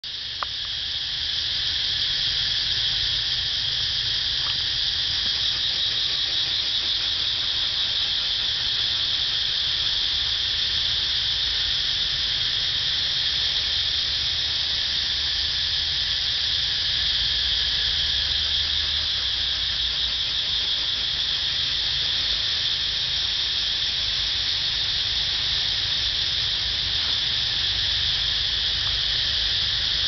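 A loud, steady chorus of insects: a continuous high-pitched drone that swells over the first couple of seconds and then holds.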